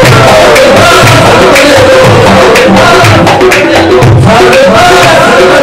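Punjabi Sufi devotional song: a sung melody over tabla and drum strokes.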